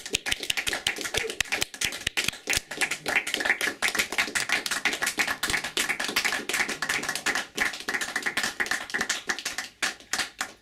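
Small audience applauding: a dense, irregular patter of hand claps that stops near the end.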